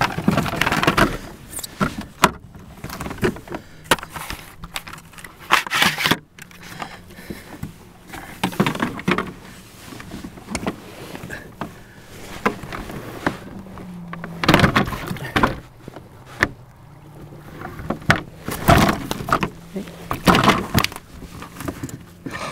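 Intermittent knocks, bumps and rustles of fishing gear handled aboard a kayak: a landing net being worked and a fish measuring board being set down, a few seconds apart.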